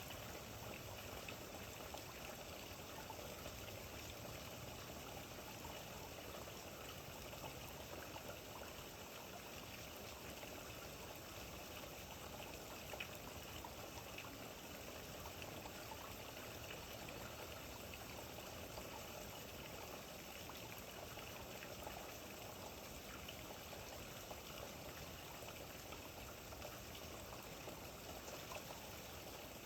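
Steady rain falling, a faint, even patter of drops with running water.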